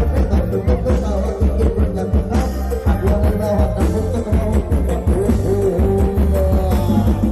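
Live Isan rock music from a rot hae sound-truck band, heard loud through the camera's own microphone: a heavy, steady bass and drum beat under a gliding melodic lead line, in a break between sung verses.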